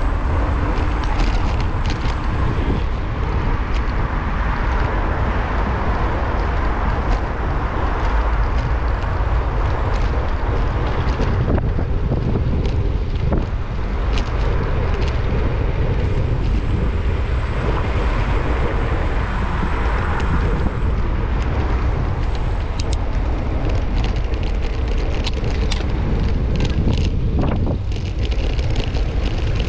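Wind buffeting the microphone of a bicycle-mounted GoPro while riding in street traffic, a steady low rumble with a wide rushing noise over it. There are occasional short clicks and knocks.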